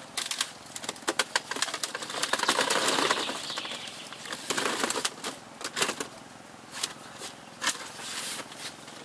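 Cucumbers tumbling and knocking against each other and the woven bamboo as a small basket is tipped out into a large bamboo carrying basket, with wicker rustling and creaking. Many quick clicks and knocks, with a longer rush of tumbling about two seconds in and another shorter one near the middle.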